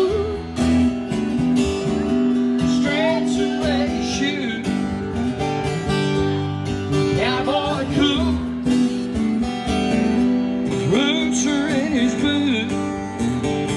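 Live country music: a band's acoustic guitars strumming a song, with a bending melody line over the chords.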